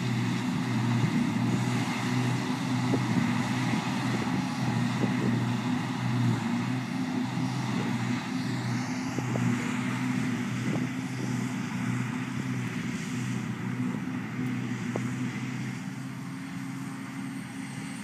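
Steady low drone of diesel silage machinery at work: a John Deere 6810 self-propelled forage harvester and its tractor and trailer, easing off slightly near the end.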